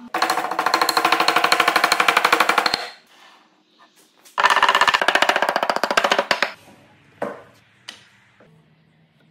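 Two runs of rapid, even, drum-like knocks, about ten a second, the first lasting nearly three seconds and the second about two, followed by two single knocks.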